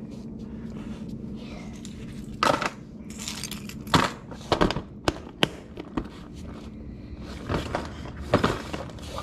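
Clear plastic tackle boxes being handled, with scattered clicks and rattles of plastic and small fishing tackle knocking about inside, over a steady low hum.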